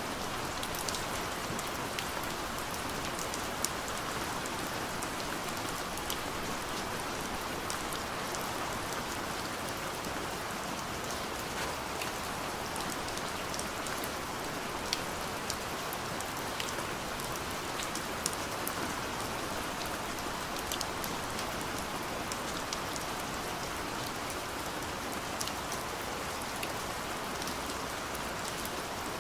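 Gentle steady rain falling on a window, with scattered individual drops ticking against the glass over a constant patter.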